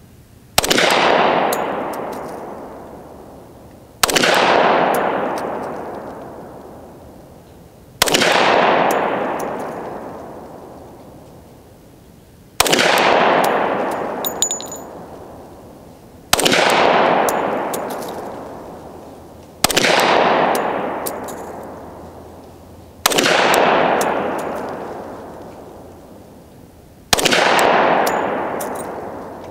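Glock 20 10mm pistol firing hand-loaded cast-lead rounds, slow aimed single shots: eight loud shots, one every three to four seconds, each followed by a long fading echo.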